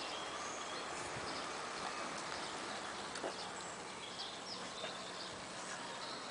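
Faint outdoor ambience with small birds chirping in the distance and a few soft clicks.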